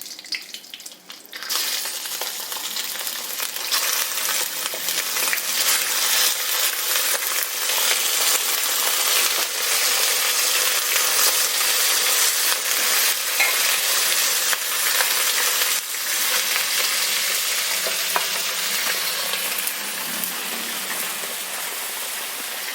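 Washed, drained chicken pieces going into hot coconut oil with curry leaves: a loud, steady sizzle that starts suddenly about a second and a half in. Occasional clicks of a utensil against the pan run through the sizzle.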